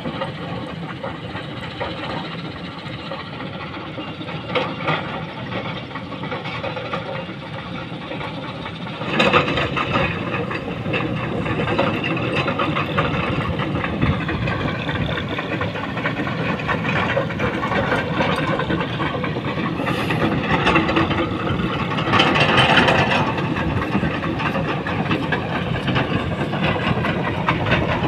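Diesel engine of a JCB tracked excavator running steadily, getting louder about nine seconds in as the machine comes closer.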